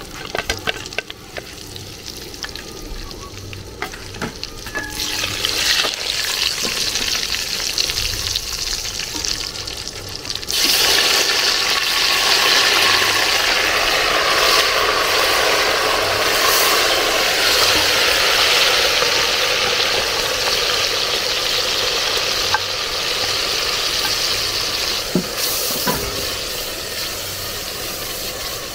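Food frying in hot oil in a cooking pot, a steady sizzle that swells after about five seconds and turns suddenly much louder about ten seconds in, with a few light clicks of stirring.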